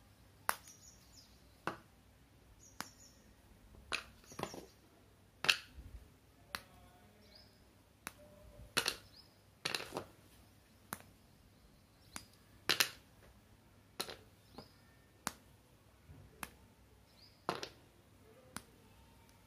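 Cadbury Dairy Milk milk-chocolate bar being snapped apart square by square, with sharp snaps and clicks about once a second at uneven spacing, and the broken pieces clicking as they drop into a plastic bowl.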